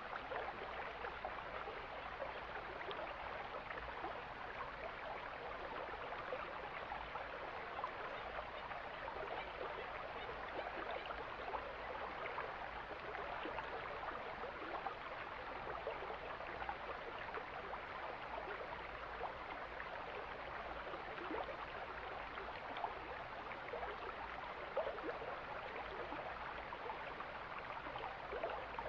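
Mountain stream flowing: a steady rush of water, dotted with many small splashes and gurgles.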